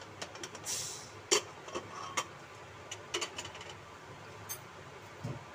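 Irregular metal clicks and clinks of a knife blade against a pressure cooker's lid and whistle weight, with a short hiss a little under a second in and the loudest click just after it.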